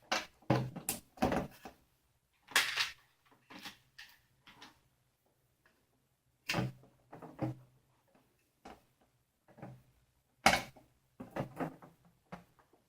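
Small mounting hardware being worked into place by hand, a series of irregular clicks and knocks in short clusters as a stubborn last piece resists going in.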